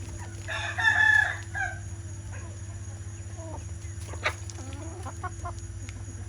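Chickens calling: a rooster gives one loud crow about half a second in, lasting about a second, followed by scattered quieter clucks and a single sharp click, over a steady low hum.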